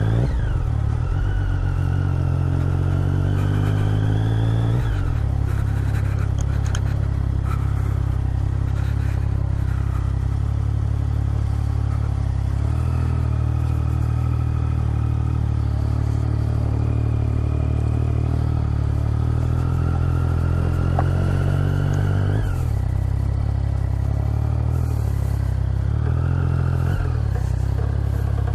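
Motorcycle engine running at low speed on a rough gravel track, its note climbing under throttle and dropping off sharply about five seconds in and again at about 22 and 27 seconds. Short clatters from the bike jolting over the loose gravel.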